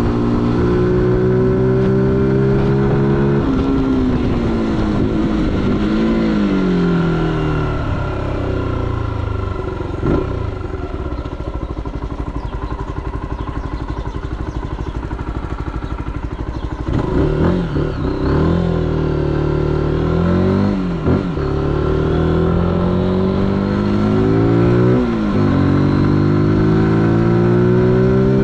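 Zontes U125's 125 cc single-cylinder engine. Its pitch falls over the first few seconds as it slows, and it idles at a standstill for several seconds. About 17 seconds in it pulls away, rising through the gears with a short dip at each shift, and climbs steadily near the end.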